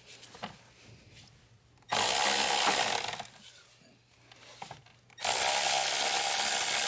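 Power tool spinning out the 13 mm battery hold-down bolt: a short run of about a second starting about two seconds in, then a second, steady run from about five seconds in.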